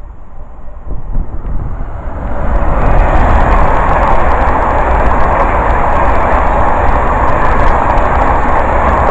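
A high-speed passenger train passes through at speed. The rush of wheels on rail and of air builds about two seconds in, then stays loud and steady as the coaches go by, with light rapid clicking from the wheels over the rail joints.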